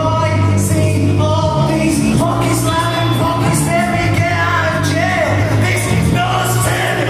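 Live rock band playing loud: a male singer over electric guitar, bass and drums, with cymbals crashing again and again.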